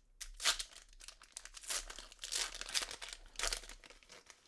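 Crinkly packaging being handled and crumpled, in a run of irregular crinkling swells with some tearing sounds.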